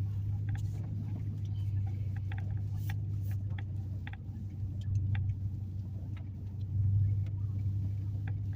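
A 4x4 pickup truck being driven, heard from inside the cab: a steady low drone of engine and tyres that swells a little twice, with scattered light clicks and rattles over it.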